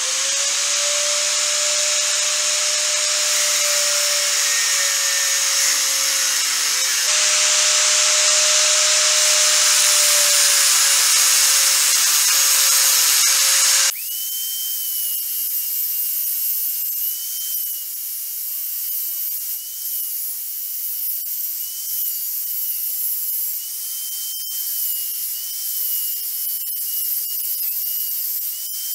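Makita angle grinder with a cutting disc slicing slots into an aluminium oil pump housing, its motor whining steadily under load. About halfway through, the sound changes abruptly to a thinner, higher whine with a few sharp ticks.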